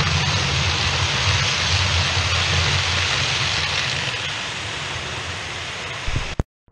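OO gauge model passenger train running past on the track, a steady rushing rattle of wheels on rail with a low motor hum, fading as it draws away and cutting off suddenly near the end.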